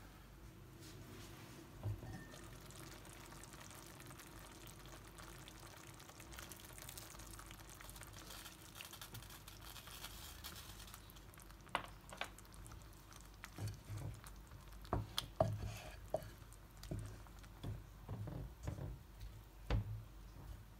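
Warm water poured into a tagine, a steady splashing hiss. About halfway through, a wooden spoon stirs the stew with a series of knocks against the pot.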